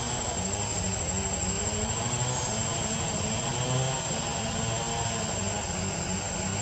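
A steady engine or motor drone, its pitch wavering slightly, with a constant high-pitched whine above it.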